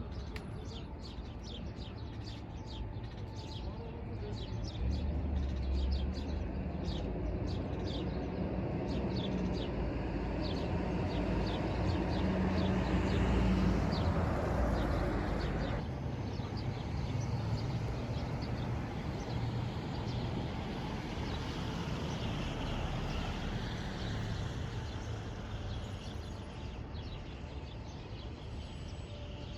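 Small birds chirping in quick repeated notes over a low, steady traffic rumble. The rumble swells in the middle, as if a vehicle passes, then eases off.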